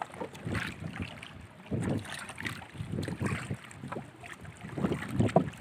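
Water splashing and slapping against a small wooden outrigger canoe as it is paddled, in irregular bursts with a few light knocks, plus some wind on the microphone.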